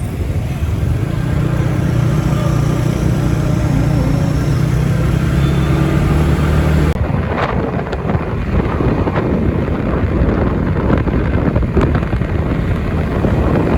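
A motor vehicle's engine running steadily. About halfway through it cuts off abruptly, and rougher noise with scattered knocks and clicks follows.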